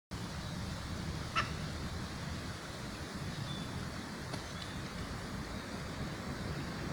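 A duck quacks once, briefly, about a second and a half in, over a steady low rumble.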